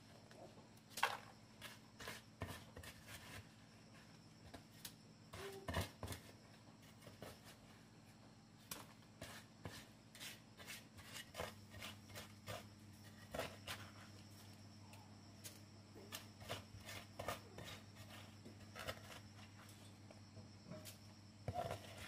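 Steel trowel scraping and tapping on wet cement mortar as it is smoothed: a run of short, irregular scrapes and clicks over a faint steady hum.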